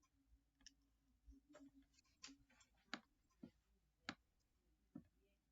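Faint computer mouse clicks, several of them at irregular intervals, over near silence.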